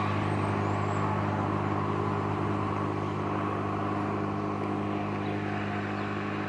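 Toro lawn mower's Suzuki two-stroke engine running steadily at constant speed, slowly growing a little fainter as the distance to it increases.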